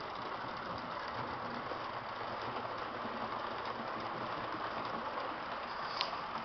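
Märklin H0 model trains running on the layout track: a steady whir and rattle of small motors and wheels on the rails, with a single sharp click about six seconds in.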